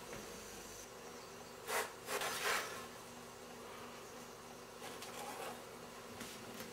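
A faint steady buzzing hum, with short scrapes about two seconds in and again about five seconds in as a metal spatula lifts a rumali roti off a flat iron griddle onto a wire rack over an electric coil burner.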